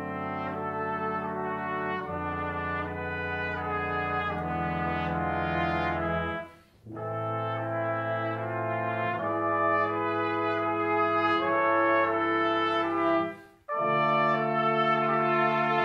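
Brass quintet of two trumpets, French horn, trombone and tuba playing sustained chords in phrases, breaking off briefly twice between phrases.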